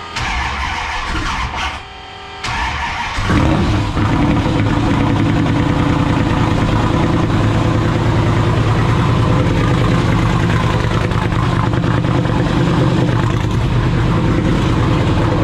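Turbocharged Hemi V8 being started for the first time: the starter cranks it briefly, with a short break, then the engine catches about three seconds in and runs loud and steady.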